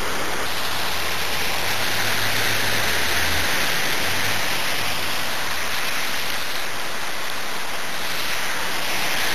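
Steady rush of water from a fountain wall spilling into a shallow stone pool.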